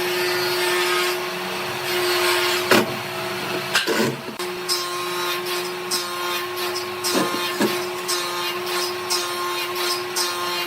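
A power tool's motor running steadily, with a few sharp knocks over it.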